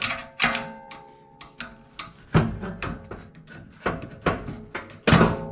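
Screwdriver clinking and knocking against the metal exhaust bracket while prying a rubber exhaust hanger off the stock muffler. Several sharp knocks, the loudest about two and a half seconds in and again near the end, over quiet background music.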